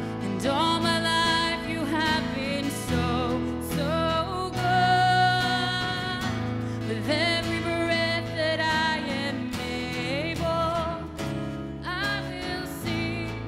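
Live worship music: a woman singing a slow melody with vibrato, accompanied by an acoustic guitar.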